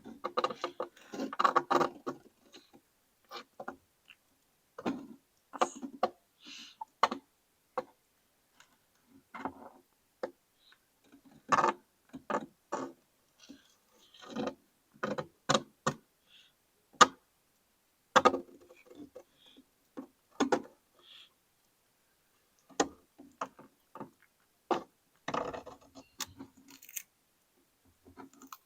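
A turtle eating, its beak biting and crunching into food in irregular sharp clicks and short clusters, with silent pauses between bites.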